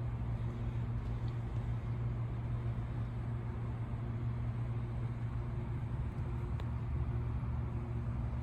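Steady low machine hum with a constant pitch and a few faint clicks.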